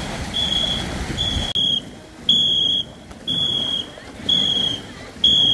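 A high, steady whistle-like tone blown in short blasts, about half a second each, roughly once a second: a rhythm signal pacing the strokes of a ghe ngo long-boat crew. A background rush cuts off abruptly about a second and a half in.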